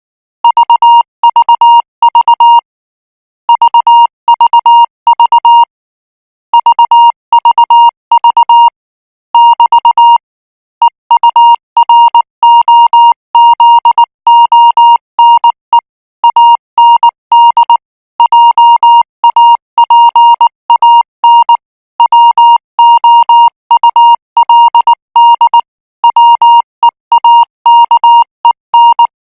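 Morse code practice signal sent at 18 words per minute: a single high beep keyed on and off in short and long marks (dits and dahs). For the first ten seconds or so the characters come in separate groups with clear pauses between them; after that they run on more closely.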